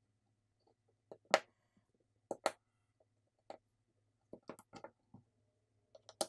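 Sharp clicks and taps of small tools and parts being handled during smartphone reassembly, the loudest pair about a second in, another pair about two seconds in, and scattered lighter clicks after.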